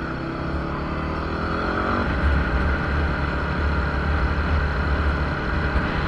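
Yamaha WR250R's 250 cc single-cylinder engine pulling away, its pitch rising for about two seconds. Then a louder, steady rush of engine and road noise.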